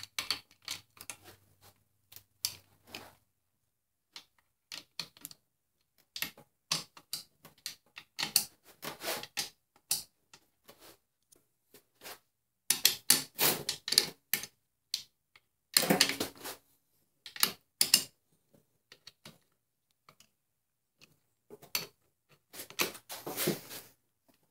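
Hand ratchet wrench clicking in short bursts with pauses between them, as bolts on a 09G automatic transmission case are run down and tightened.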